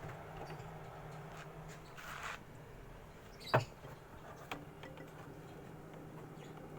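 Refrigerator compressor running with a steady low hum while the system is recharged with freon, the evaporator starting to frost. Scattered small clicks and knocks, with one sharp click about three and a half seconds in.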